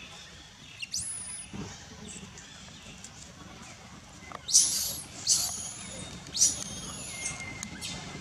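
Infant long-tailed macaque giving short, high-pitched squealing cries, each sweeping sharply up and then holding: one about a second in, then four in quick succession from about halfway. These are the distress cries of a baby that its mother will not let nurse.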